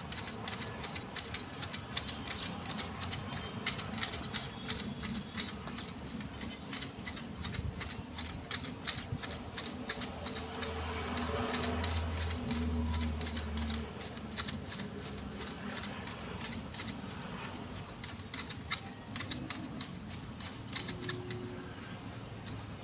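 Hand shears snipping twigs off a Fukien tea hedge: a quick, irregular run of sharp clicks and snips. A low hum swells briefly around the middle.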